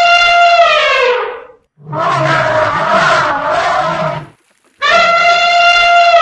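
Elephant trumpeting: a loud, brassy call held on one pitch and then sliding down at its end, followed by a harsher, noisier call with a low rumble underneath, then the same trumpet call again near the end.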